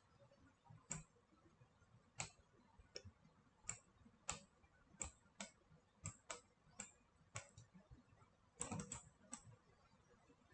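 Faint, sharp computer mouse clicks, irregular at roughly one or two a second, with a quick run of several clicks near the end.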